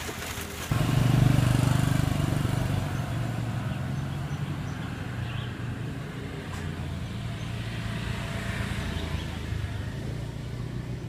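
A motor vehicle engine running steadily with a low hum. It comes in suddenly about a second in and eases off a little.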